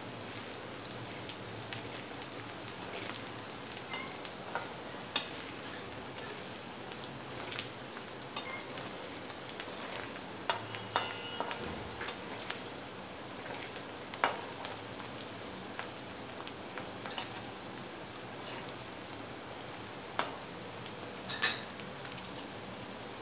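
Chopped onions sizzling steadily in hot oil in a kadai, being sautéed. Now and then a slotted steel spatula stirs them, with sharp scrapes and clinks against the pan.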